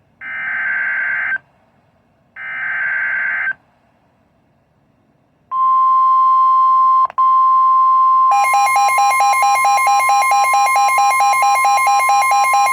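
NOAA Weather Radio SAME data header: two short, raspy digital bursts about a second apart. About five seconds in, the steady 1050 Hz warning alarm tone starts, cutting out briefly near seven seconds. About eight seconds in, a second, rapidly pulsing alarm tone joins it.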